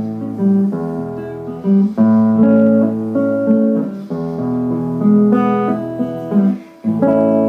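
Acoustic guitar strumming the closing chords of a song, a new chord struck every second or two. The last one, about seven seconds in, is left to ring.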